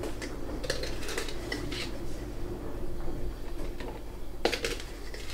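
Ice cubes and a NutriBullet blender cup being handled: a few light clinks and knocks early on, then a quieter stretch and one sharper knock about four and a half seconds in, as the cup is readied for blending.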